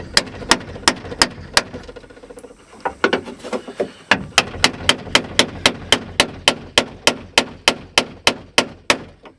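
Hammer driving a chisel against a rivet on the window regulator inside a steel truck door, cutting the rivet head off. It is a regular run of sharp blows, about three a second, with a short pause about two seconds in before the hammering resumes.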